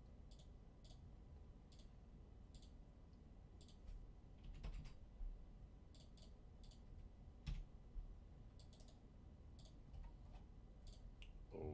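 Faint, irregular clicks of a computer mouse and keyboard keys as a giveaway form is filled in, with a couple of soft low thumps about five and seven and a half seconds in.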